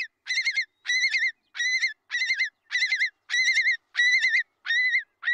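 Recording of a single long-billed curlew giving its alarm call, the call adults use to chase predators off the nest. It is a string of wavering notes, about two a second, repeated without a break.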